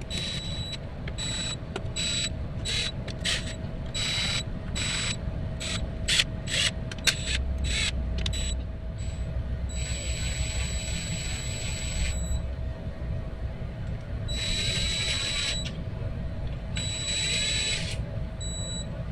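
Cordless power tool running down the transmission oil pan bolts. First comes a quick series of short whirring pulses, then three longer runs of a second or two each, with a high motor whine.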